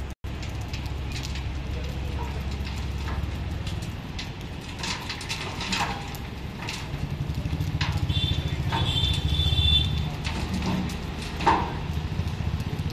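Dump truck's diesel engine running to work the hydraulic hoist as the tipper bed rises, its rumble growing louder from about seven seconds in to a peak near ten seconds. Scattered knocks from the truck and site, with one sharp clack near the end.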